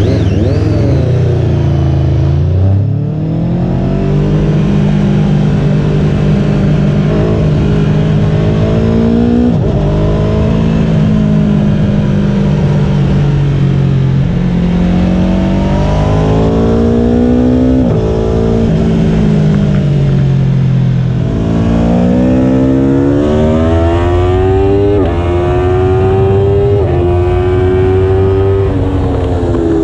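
Aprilia Tuono V4 1100 RR's V4 engine through a Graves exhaust, heard from a camera mounted on the bike, pulling away from a standstill and riding on at moderate speed. The pitch climbs and then drops sharply several times as it changes gear.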